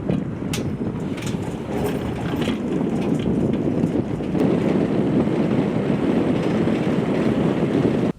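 Wind buffeting the microphone: a loud, rough, steady rumble with a few light knocks in the first few seconds.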